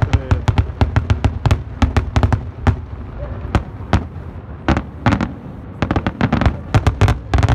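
Aerial fireworks display: a rapid, irregular string of sharp bangs from bursting shells, several a second, thickening into a dense cluster near the end.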